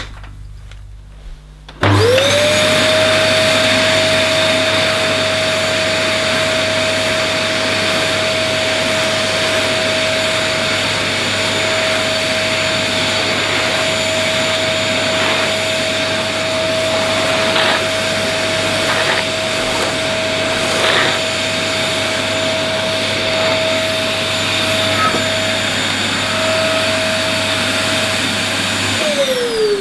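Dyson DC11 canister vacuum cleaner switched on about two seconds in: the motor spins up to a steady whine over a rush of air while a turbine brush head is pushed over carpet, with a few light knocks. Near the end it is switched off and the whine falls as the motor winds down. Suction is weak, so the turbine head's brush roll turns only slowly.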